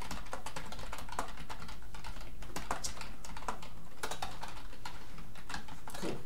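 Typing on a computer keyboard: a run of quick, uneven keystrokes over a low steady hum.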